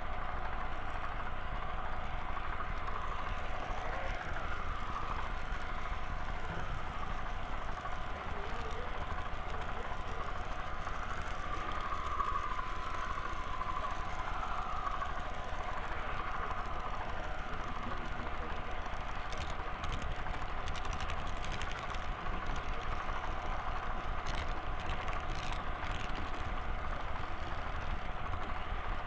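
Model train running along the track, heard from a camera riding on it: a steady mechanical hum with a constant whine. Voices murmur in the background.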